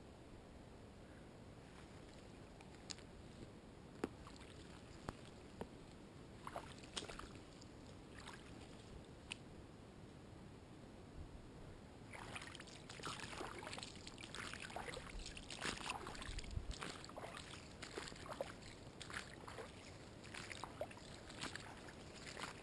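Footsteps through shallow water and wet grass on a flooded trail: a few faint scattered ticks at first, then from about halfway a steady run of splashing, swishing steps.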